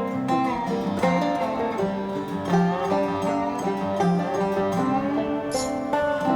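Background music: acoustic country-bluegrass style string music with plucked banjo and guitar, notes changing at a lively pace.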